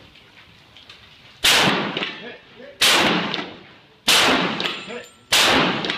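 Shotgun fired four times at a steady pace, about one and a quarter seconds apart, each shot loud and sharp with a short echo trailing off under the covered firing bay.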